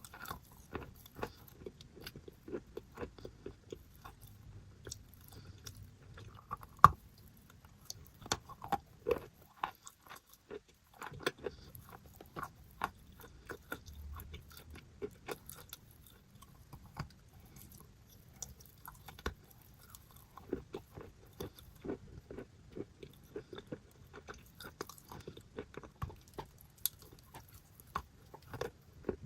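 Person biting and chewing paste-covered chalk: a run of crunches and crackles, with one loud sharp crack about seven seconds in and a short pause near ten seconds.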